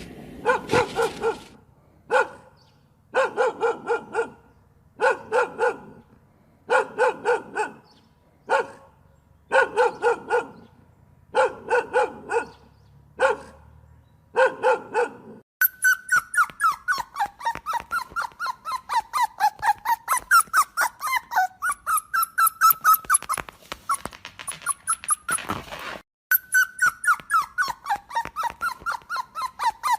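A dog barking in bursts of three to five quick barks, about one burst every two seconds. About halfway through this gives way to a dense, continuous run of high, wavering whimpering yelps, many to the second.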